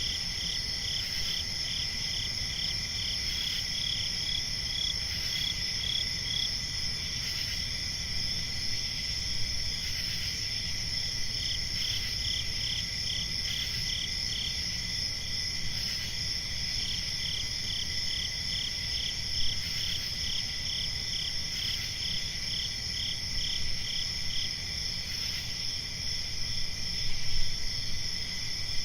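Night chorus of crickets chirping steadily, with a faster pulsing trill that comes and goes, over a low rumble.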